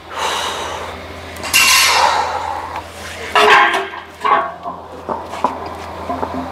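Steel strongman log being hauled off the floor and cleaned to the chest, with metallic clinks and knocks from the log and strong, effortful breaths. The sharp knocks come in a short run from about four seconds in.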